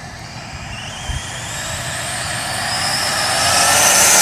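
Twin-motor FTX Banzai RC speed-run car's electric motors whining under power, the high-pitched whine rising slowly in pitch and getting steadily louder as the car approaches. A brief low thump about a second in.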